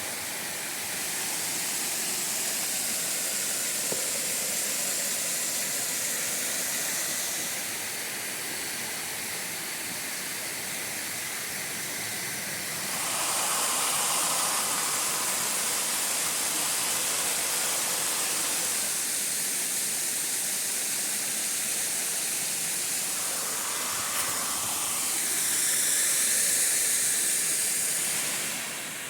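Steady rushing of a waterfall and stream cascading over rock, a constant hiss that grows louder about halfway through and again near the end.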